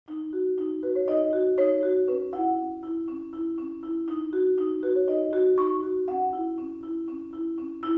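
Background music: a bright melody of short struck notes, the phrase repeating about every four seconds.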